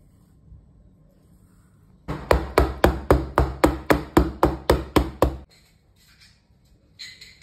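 Metal loaf tin full of cake batter banged repeatedly on the worktop, about thirteen heavy knocks at about four a second, to settle the batter and knock out air bubbles.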